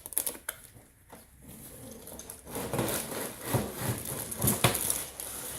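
A cardboard box is being opened and its contents handled: a few sharp clicks, then rustling and knocking of cardboard and packaging, loudest near the end.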